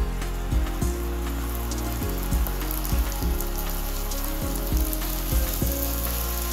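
Melted sugar syrup sizzling as it is poured onto hot roasted vermicelli in a pan, over background music with a steady beat.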